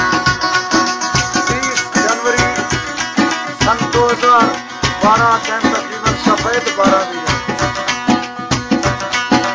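Music: a song with a plucked string instrument over a steady hand-drum beat, and a melody that bends up and down in pitch around the middle.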